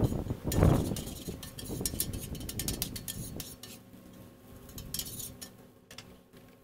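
Bacon sizzling and crackling on a steel flat-top griddle, with a metal spatula and tongs scraping and clinking against the plate, loudest about half a second in. The crackle thins out near the end.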